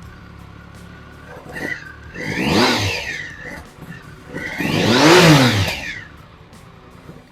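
A 2005 Triumph Speed Triple's three-cylinder engine idling, then revved twice with the throttle, its pitch climbing and falling back each time, the second rev the louder. It is the engine's first run after years of sitting.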